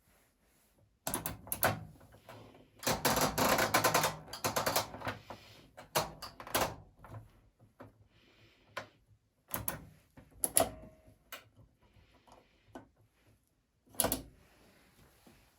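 Irregular clicks, knocks and short bursts of clatter from a Beko WA 1050 washing machine being handled, with the busiest clatter in the first half and a last sharp knock near the end.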